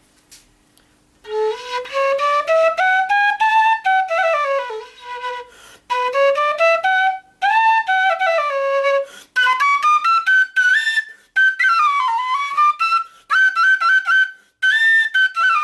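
Quena in G (sol) played solo: a melody of quick stepwise runs up and down, starting about a second in from its low notes and climbing into the high register in the second half, ending on a held note.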